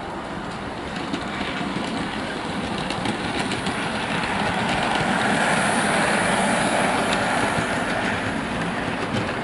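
Model railway train, a model Class 37 diesel locomotive hauling model snowploughs, running along the track: the hum of the motor and the wheels on the rails grow louder as it passes closest about halfway through, then fade.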